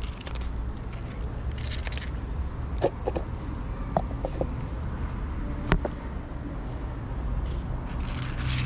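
Cats crunching dry kibble from bowls, with short crackly bursts and a few sharp clicks, over a steady low rumble of distant traffic.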